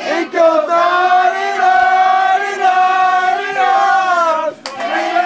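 A group of men singing loudly together at a party, holding long drawn-out notes. The singing breaks off briefly near the end and starts again.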